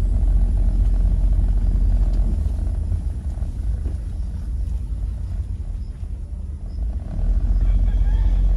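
Low, steady rumble of a car being driven slowly, heard from inside the cabin; it eases off for a few seconds mid-way and builds again near the end.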